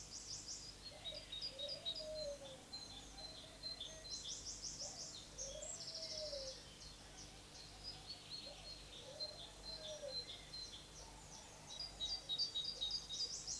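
Several songbirds singing and chirping in quick trills, with a lower call that rises and falls, repeated several times in the first part.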